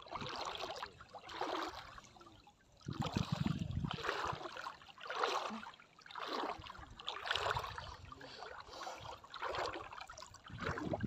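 Water swishing and splashing in an even rhythm, about one stroke a second, as something moves steadily through shallow sea water.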